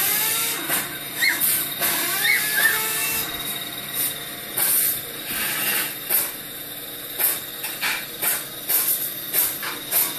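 Newborn Belgian Malinois puppies giving a few short, high squeaks in the first few seconds, over a run of irregular short scratchy noises.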